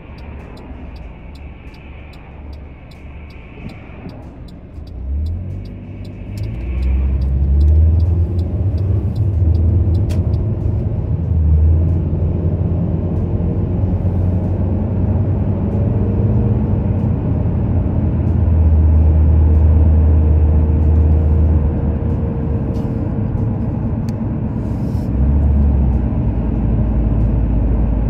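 Car engine and road noise heard inside the cabin: quiet at first, then the engine note rises as the car accelerates about five seconds in, settling into a loud, steady low rumble of driving.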